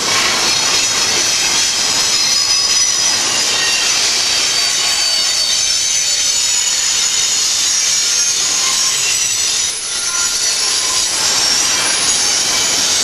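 A train's railroad cars rolling past with their wheels squealing: several steady high-pitched squeals ring over the loud rush of the wheels on the rails.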